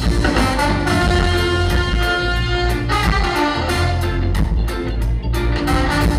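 Live ska band playing, its horn section of trombone, saxophones and trumpets carrying a held melody line over bass, keyboard and a steady drum beat with regular cymbal hits.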